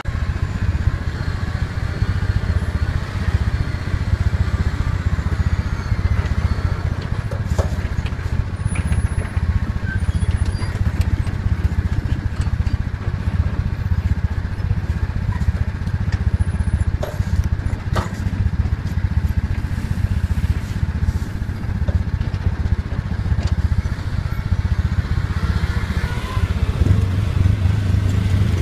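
Diesel engine of a MAN concrete mixer-pump truck running steadily at low revs as it creeps along a gravel track, a constant low rumble. A few sharp ticks stand out, the clearest about eighteen seconds in.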